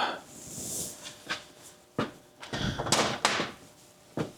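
Knocks, clanks and short scrapes of hand tools and a drain pan under the van while the manual transmission drain plug is being worked loose. The sharpest knocks come at the very start and about two, three and four seconds in.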